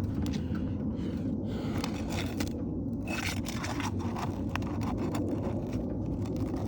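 Metal roofing flat bar scraping and prying under asphalt shingles to work nails loose, a run of scratchy scrapes and small clicks over a steady low background rumble.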